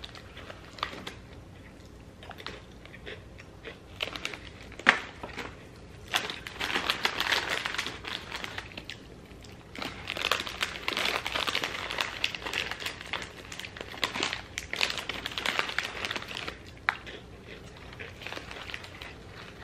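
Small plastic snack pouches of Goldfish crackers crinkling as they are handled, in several spells of crackle with a few sharp clicks.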